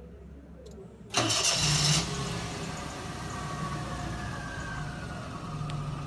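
A car engine started remotely from the alarm kit's key fob. About a second in the starter cranks and the engine catches with a loud burst, then it runs at a fast idle whose pitch slowly falls as it settles.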